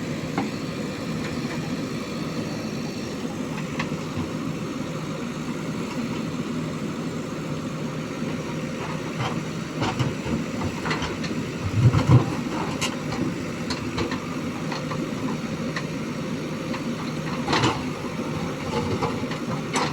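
JCB 3DX backhoe loader's diesel engine running steadily, with a few sharp knocks and a heavier thump about twelve seconds in.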